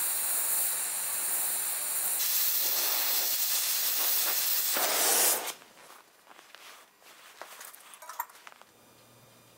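Oxy-fuel torch flame hissing steadily as it heats a bend in an iron brace to relieve stress in the bend. The hiss cuts off suddenly about five and a half seconds in, and a few faint light ticks follow.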